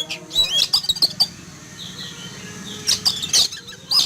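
Oriental magpie-robin (kacer) calling in loud bursts of quick, swooping whistled notes: near the start, about a second in, and again around three seconds. The uploader takes this noisy calling for alarm at a hawk flying overhead.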